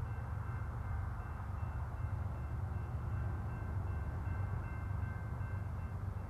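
BNSF diesel locomotives pulling a loaded coal train, their engines working under load with a steady low rumble, with faint thin steady tones above it.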